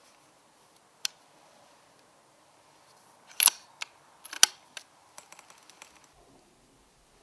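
Brocock Concept XR air rifle being worked: a sharp click about a second in, two loud metallic clacks near the middle with smaller clicks between, then a run of light clicks.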